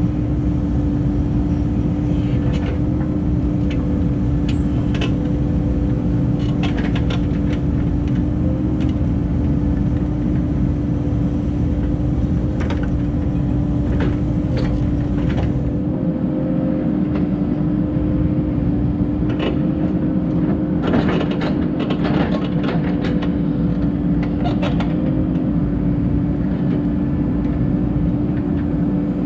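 Cat 308 excavator's diesel engine running steadily with a constant drone, while the machine works, with scattered clanks and knocks, several close together about two-thirds of the way through.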